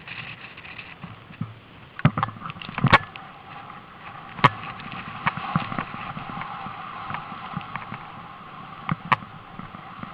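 Steady rush of snow and wind on the microphone while sliding through deep powder snow, with several sharp knocks and thumps as the handheld camera jolts, the loudest about three seconds in.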